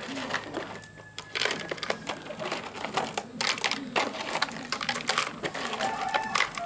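Small gravel stones clattering into the hard plastic bed of a toy dump truck as it is filled, a rapid, uneven run of clicks and rattles that thickens after the first second or so.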